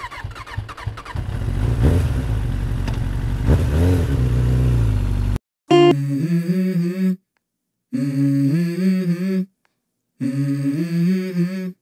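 A motor vehicle engine revving, its pitch rising and falling a couple of times, for about five seconds before it cuts off abruptly. It is followed by the opening of a hip-hop track: a melody of held notes played in short phrases with sudden silent breaks.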